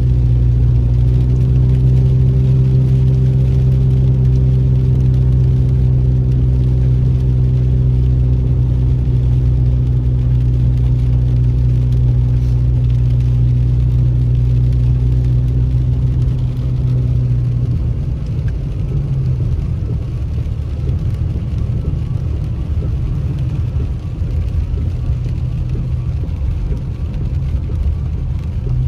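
A car's engine and tyre noise droning steadily, heard inside the cabin while driving. About two-thirds of the way through, the steady hum gives way to a rougher, slightly quieter low rumble.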